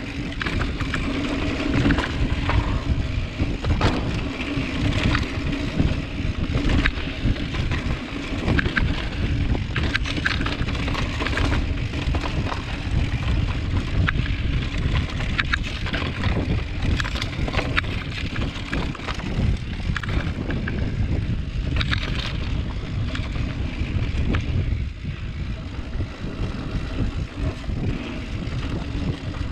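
Mountain bike riding over a dirt singletrack: wind buffeting the camera microphone over a constant rumble of tyres on dirt, with frequent sharp clicks and rattles from the bike as it goes over roots and rocks.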